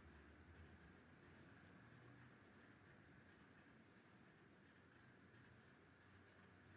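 Faint scratching of a pencil on drawing paper, in short, irregular strokes.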